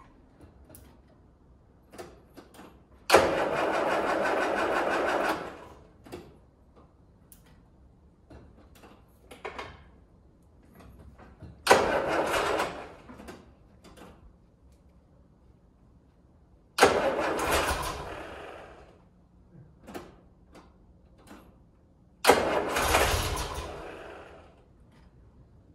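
Land Rover Series 3 2.25-litre petrol engine being started: four separate start attempts, each a sharp burst of engine noise that fades out within about two seconds, with quiet in between.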